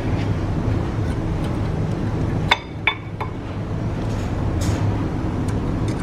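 Metal tools or brake parts clinking: three light clinks in quick succession about two and a half seconds in, each ringing briefly, over a steady low rumble.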